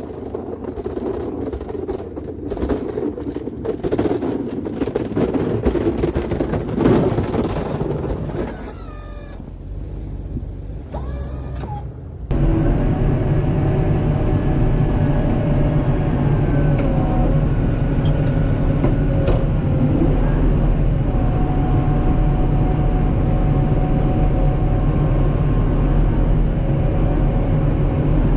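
Kubota M7060 tractor's diesel engine running. For about the first twelve seconds the machine noise is uneven and changing; then it switches abruptly to a steady, even engine drone.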